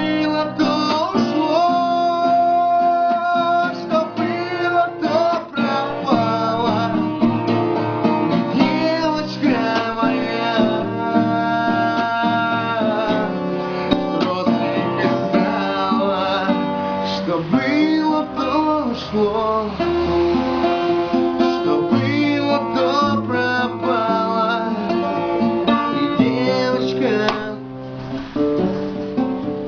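A song sung to strummed acoustic guitar accompaniment.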